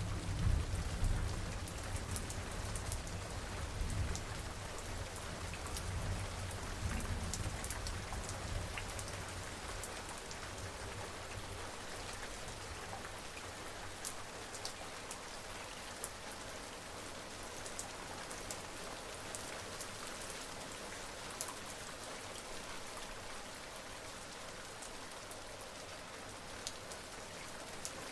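Steady rain falling, with individual drops ticking sharply close by. A low rumble of distant thunder dies away over the first several seconds.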